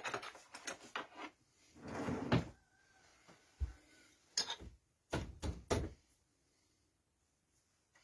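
Knocks and clatter of a wooden blank and tools being handled at the lathe: a string of separate knocks over about six seconds, then it goes quiet.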